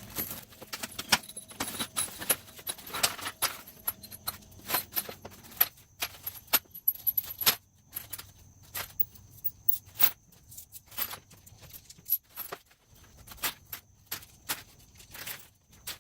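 Small metal nuts and bolts clinking against each other as they are tossed by hand into a plastic bag: irregular clinks, thicker in the first half and sparser later.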